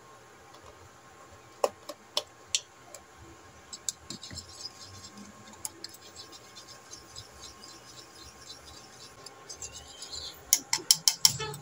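Wire whisk beating eggs and milk in a ceramic bowl: three sharp clinks about two seconds in, then a fast run of light ticks as the whisk knocks against the bowl, and a quick burst of loud clinks near the end.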